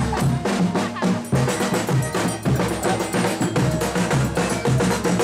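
Folia band playing between the clown's verses: drums and other percussion beating a quick, steady rhythm under held instrumental notes.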